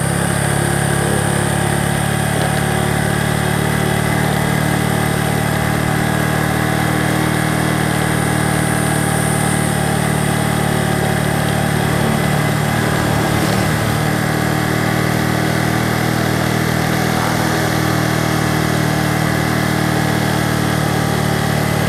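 A motor vehicle's engine running steadily while driving, over a steady hum of road noise.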